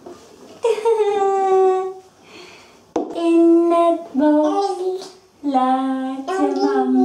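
A woman and a toddler singing together, a string of long held notes that step lower one after another.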